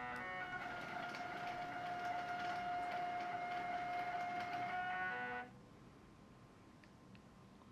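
Stepper motor driving a vertical model railroad traverser upward, running with a steady whine. It steps up in pitch as it ramps up at the start, then steps down as it ramps down and stops about five and a half seconds in, the deck arriving at its level.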